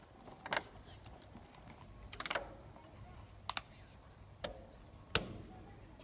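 A few irregular knocks and clicks of shoes and hands on a wooden climbing frame's log rungs and posts, the loudest knock about five seconds in.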